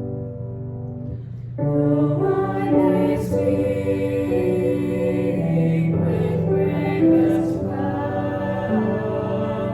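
Slow sacred music with long held chords and a choir singing; it swells and grows fuller about a second and a half in.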